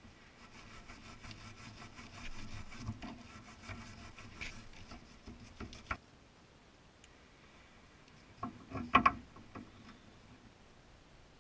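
Hand-tool handling noise in a car's engine bay: rustling and small clicks for about six seconds, then a brief cluster of sharp metal clanks about nine seconds in as a long wrench is set onto the upper control arm nut.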